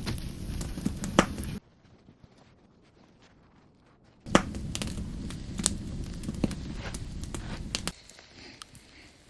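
Campfire burning with sharp crackles and pops over a low rumble. The sound drops away suddenly about a second and a half in, comes back about four seconds in, and thins to faint scattered crackles near the end.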